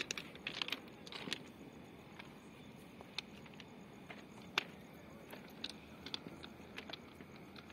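Footsteps crunching on railway track ballast, with scattered short, sharp pops from distant firecrackers.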